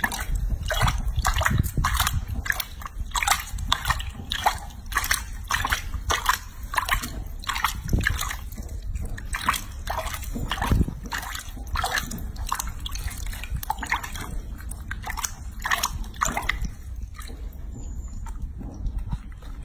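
Water sloshing and splashing in a sink as a hand scoops and rubs it over a baby monkey being bathed, a quick run of wet splashes about two to three a second that thins out near the end.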